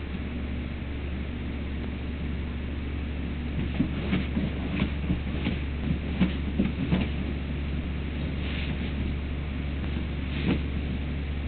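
Doberman puppy's paws scratching and scuffing at the rug in quick, irregular strokes, mostly between about four and seven seconds in, with a couple more near the end, over a steady low hum.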